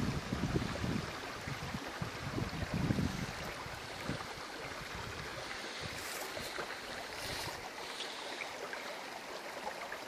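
Wind buffeting the microphone in gusts for the first few seconds, then a steady hiss of wind and the flowing water of a small stream.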